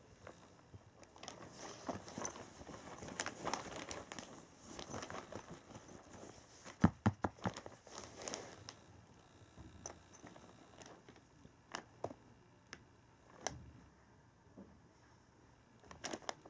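Garment bag of thin non-woven fabric and clear plastic rustling and crinkling as a cat shifts about inside it, with a quick run of sharp clicks about halfway through and a few single clicks after.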